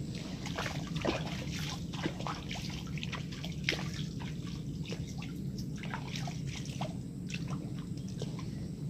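Shallow, muddy pond water sloshing and dripping: a string of short, irregular little splashes.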